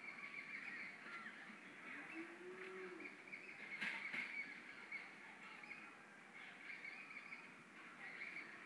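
Faint outdoor ambience of birds chirping and calling, with a low drawn-out call just after two seconds. A short crackle about four seconds in is the loudest sound.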